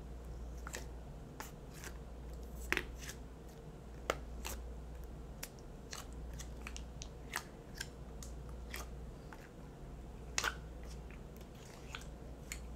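Fingers poking, pressing and squishing a thick, fluffy slime, giving scattered small crackles and pops, a few a second, over a low steady hum.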